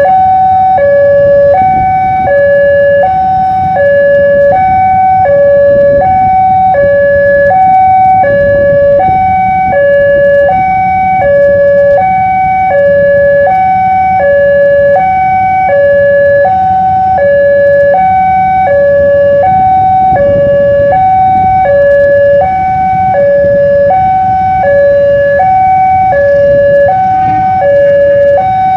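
Indonesian electronic railway level-crossing alarm sounding continuously in an even two-tone pattern, a lower and a higher tone alternating about every two-thirds of a second. It warns that a train is approaching and the crossing is closed to road traffic.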